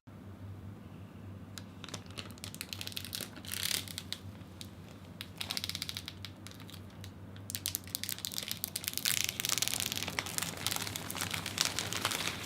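Plastic packaging crinkling and rustling with scattered light clicks and taps as computer parts are handled, over a low steady hum. The rustling grows busier in the second half.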